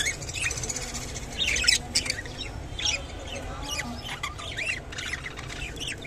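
Budgerigars chattering: a steady run of short, squawky chirps and clicks, many of them quick rising-and-falling notes.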